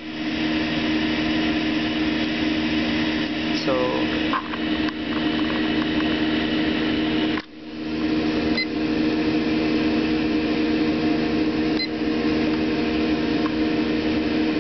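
Steady machine hum of a Rinnai tankless water heater's fan and burner running while hot water is being drawn. Two short beeps come from its controller as the temperature button is pressed.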